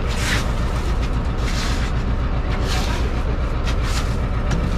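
Truck engine running at idle, a steady low rumble, with brief rushes of hiss about once a second.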